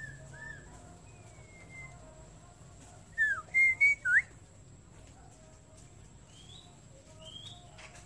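White-rumped shama singing: a short, loud phrase of four clear whistled notes, sliding up and down, about three seconds in, with fainter whistled notes before and after it.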